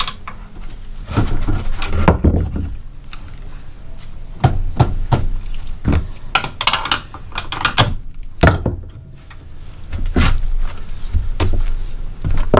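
Irregular metal clanks and knocks of a pry bar and hand tools against the spindle and lower control arm of a Can-Am Maverick's front suspension as they are pried apart, with a short lull about nine seconds in.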